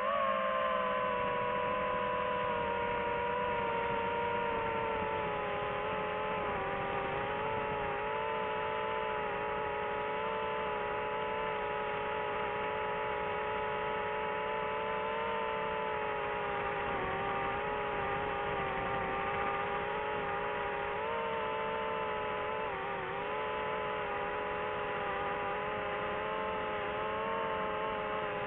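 DJI FPV drone's motors and propellers whining in flight, a steady pitched drone that eases down in pitch at first, wavers as the throttle changes and dips briefly near the end.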